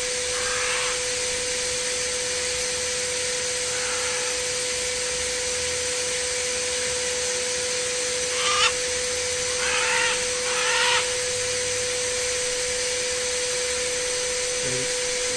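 Snow machine's blower motor running with a steady whooshing hum as it sprays foam snow. Over it come a few short, wavering high-pitched calls, the loudest a little past the middle.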